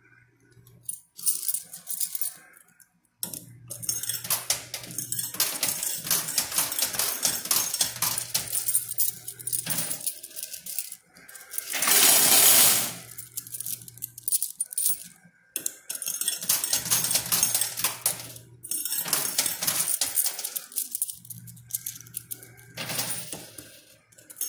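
Quarters clinking and clattering in a coin pusher machine as coins are played onto the coin bed and shoved along. A low hum comes and goes every few seconds, and there is a louder rush of coin noise about twelve seconds in.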